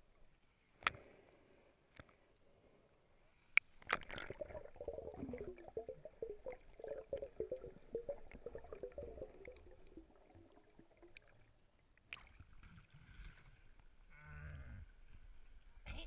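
Muffled underwater sound heard through a sealed camera housing: a few sharp clicks, then several seconds of a wavering, bleat-like pitched sound. Near the end there is water noise and a low thump as the camera breaks the surface.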